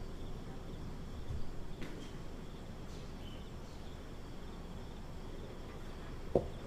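Faint steady outdoor background noise, with one short sharp knock near the end.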